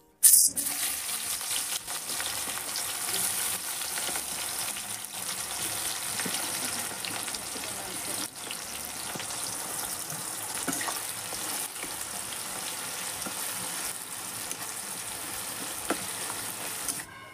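Sliced onions sizzling and bubbling as they deep-fry in hot oil in a karahi, frying down to crisp beresta. The sizzle comes in suddenly and loudly just after the start, then holds steady.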